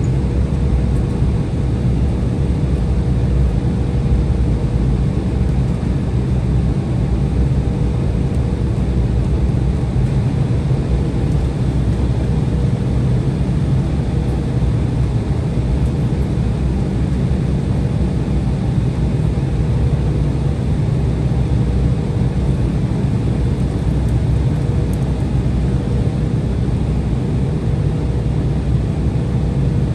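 Steady cabin noise inside an Embraer 175 jet after landing: an even low rumble with a faint steady hum above it, unchanging throughout.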